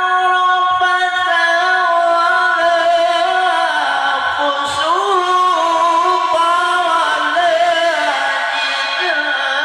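Quran recitation in the melodic tilawah style: a single high male voice holding long, drawn-out melismatic notes that step and glide slowly in pitch, dipping lower about halfway through and again near the end.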